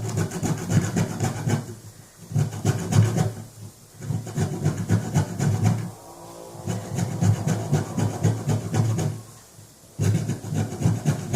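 Lemon peel being grated on a fine hand grater: quick rasping strokes in runs of about two seconds, with short pauses between them.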